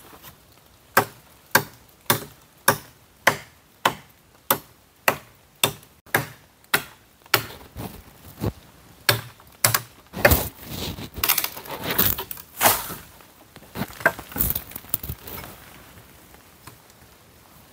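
Steady chopping into dry wood with a blade, about one and a half strikes a second, each a sharp crack. About ten seconds in the strokes stop and give way to a few seconds of cracking and rustling as the wood breaks, then a few scattered knocks.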